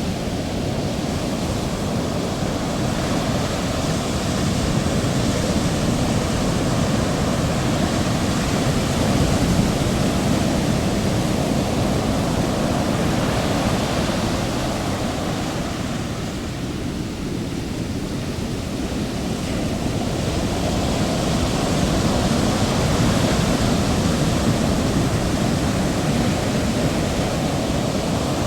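Heavy ocean waves: a continuous rush of surf that swells and eases slowly, with a lull about two-thirds of the way through before the next wave builds.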